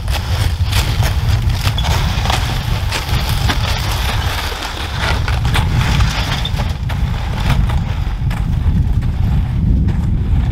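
Wind buffeting the microphone as a heavy low rumble, over crunching footsteps in deep snow and the hiss of loaded gear sleds dragged through it.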